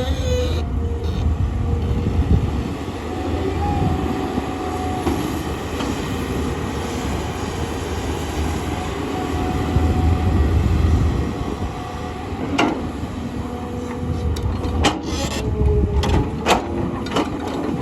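Hydraulic excavator's diesel engine running under load as it digs, a steady low rumble, with several sharp knocks in the last few seconds.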